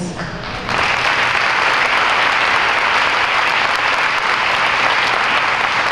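Audience applauding, starting just under a second in and holding steady.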